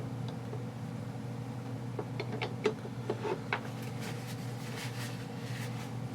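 Light clicks and taps of small metal parts of an airsoft gun's gearbox being handled, a cluster of them about two to three and a half seconds in, over a steady low hum.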